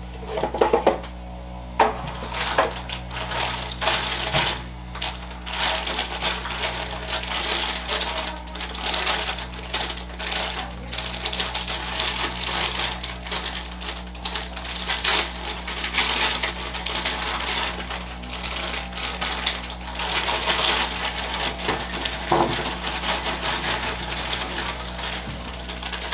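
Clear plastic bag of cardboard jigsaw puzzle pieces crinkling and rustling as it is handled and opened, with the pieces shaken out and clattering onto the table later on. A faint steady low hum sits underneath.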